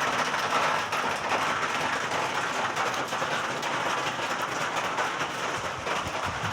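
Steady hiss of heavy rain falling, with no break or change.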